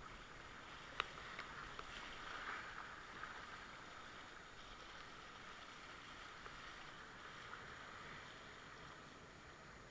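Faint rushing of river whitewater around a kayak running a rapid, with a single sharp knock about a second in and a few small ticks after it.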